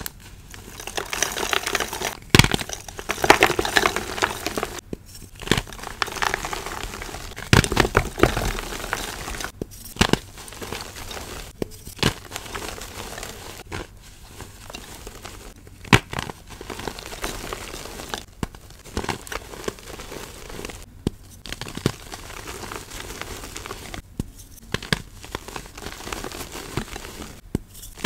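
Reformed gym chalk blocks, tinted gray with charcoal, squeezed and crushed in bare hands: dry crunching and crumbling with sharp cracks as pieces snap, broken by a few short silent gaps.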